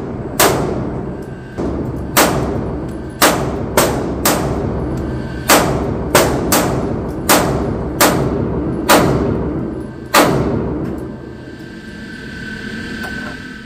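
Handgun shots, about a dozen fired at irregular intervals over ten seconds, each with a long echoing decay, then a quieter stretch with no shots near the end.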